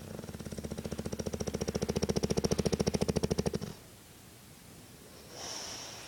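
Bulldog snoring: one long snore with a fast flutter that grows louder for about three and a half seconds and stops abruptly, followed near the end by a softer, hissing breath.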